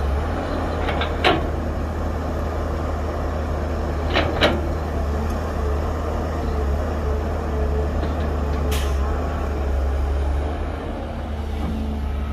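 Heavy diesel engines of a dump truck and excavator running steadily with a low rumble, with a knock about a second in, two more knocks about four seconds in, and a brief hiss near the end.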